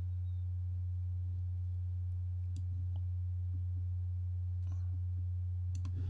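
Steady low electrical hum, like mains hum in the recording, with a few faint computer-mouse clicks as a line is drawn on a schematic.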